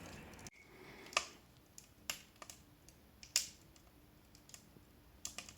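Wood burning in a fireplace's cast-iron firebox, with a few sharp crackling pops spaced irregularly over a faint background; there is an abrupt cut about half a second in.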